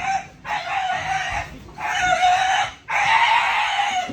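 A chicken squawking loudly three times in a row, each call a harsh, held cry of about a second.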